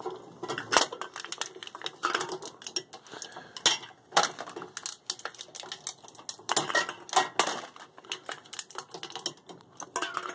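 Homemade double-sided automatic can crusher, driven by a 90-volt DC permanent-magnet motor through a worm gear, running back and forth and crushing aluminum cans. The result is a run of sharp metallic clanks and crunches at uneven spacing, with the flattened cans clattering down into the bin.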